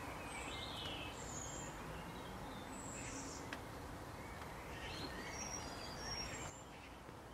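Several birds chirping and whistling in short high calls over a steady outdoor hiss, which drops a little near the end.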